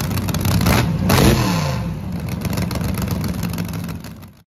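Car engine revving up once about a second in and dropping back, then running steadily before fading out near the end.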